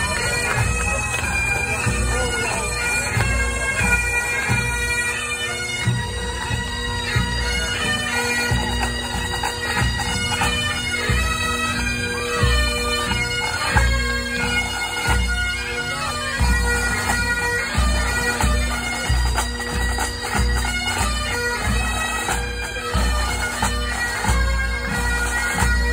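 Pipe band playing a march: bagpipes sounding a tune over their steady drones, with drums keeping a regular beat.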